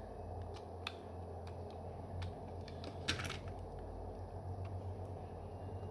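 A few small, sharp clicks from handling a phone's internal parts, as the display flex-cable connector of an iPhone 3G is pressed back onto the logic board: one click about a second in and a short clatter of clicks near the middle, over a steady low hum.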